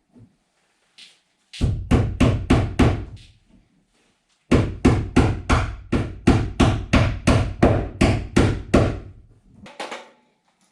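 Hammering: two quick runs of blows, about six and then about fifteen, three to four a second.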